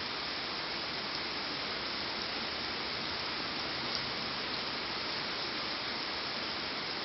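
Rain falling steadily, an even hiss with a few faint drop ticks, the most distinct about four seconds in.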